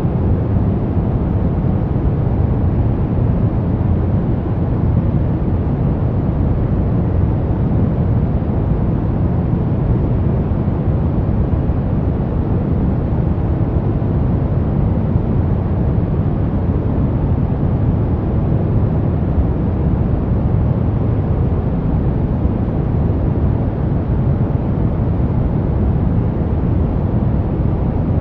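Brown noise: a steady, unchanging deep rumbling hiss, strongest in the low end and fading toward the highs, with no events or changes.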